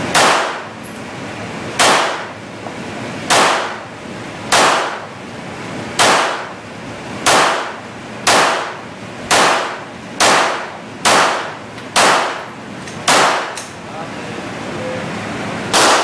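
Tanfoglio 9mm pistol fired in a steady string of about fourteen shots, roughly one every second, coming a little faster in the second half. Each shot cracks sharply and trails off in a short echo off the range's walls.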